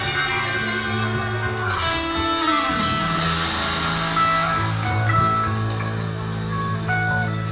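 Live rock band playing through amplifiers: two electric guitars and a bass guitar hold sustained notes, with one note sliding down in pitch about two seconds in.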